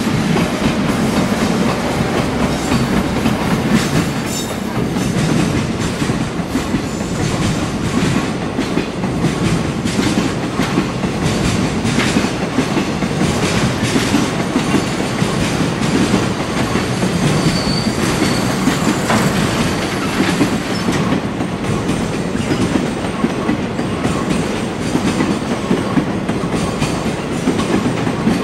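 Container freight train passing close by, with the EF66 electric locomotive leading and an EF210 behind it. The wagons rattle and clatter steadily over the rail joints, and a brief faint wheel-flange squeal comes about two-thirds of the way through.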